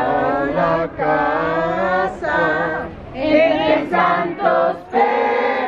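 A group of people singing a traditional posada song, the sung request for refuge at a house, in phrases of long held notes with short breaks between them.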